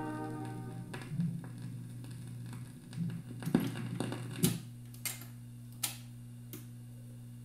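Music from the record dies away as the volume is turned down. Then the record changer's mechanism runs through its cycle, with a handful of clicks and knocks as the tonearm lifts and swings back to its rest, the loudest about four and a half seconds in. A steady low hum runs underneath.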